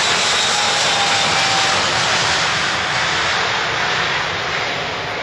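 Boeing 777 twin jet engines at takeoff thrust as the airliner rolls down the runway and lifts off: a loud, steady jet noise with a faint whine dropping slightly in pitch, easing off a little in the last couple of seconds.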